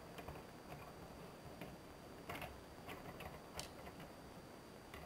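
Faint, irregular clicks and taps of plastic Lego pieces as the fire truck's ladder is handled and pressed back into place, the loudest clicks about two and a half and three and a half seconds in.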